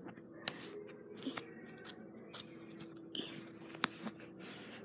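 Small scissors snipping through the thick fabric of a plush toy: several separate, sharp snips, the fabric really hard to cut.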